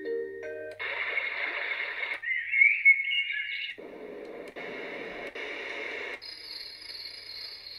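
A string of added electronic sound effects, switching abruptly about every second or so: hissy, static-like blocks, a warbling whistle-like chirp about two to four seconds in, more hiss, then a steady high tone near the end.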